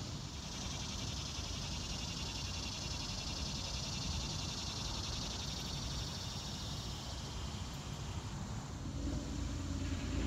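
Cicada buzzing, a steady, fast-pulsing drone that swells in and fades out after about seven seconds, over a low rumble of wind on the microphone.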